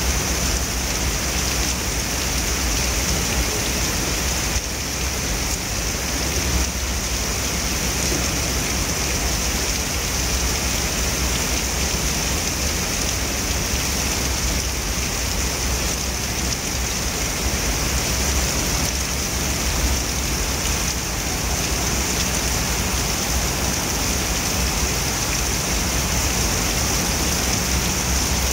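Heavy rain pouring steadily onto wet paving, a continuous even hiss of drops splashing on the ground.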